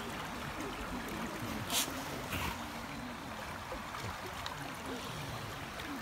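Shallow, clear Isuzu River babbling steadily over a pebbly bed, with two brief louder hisses of water about two seconds in.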